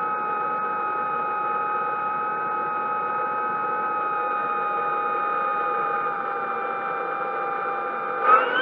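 Small electric motors whining at a steady speed over a hiss, their pitch rising sharply near the end as they speed up.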